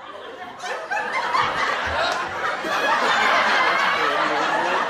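A dense babble of many overlapping voices, with laughter-like calls among them, growing louder about a second in.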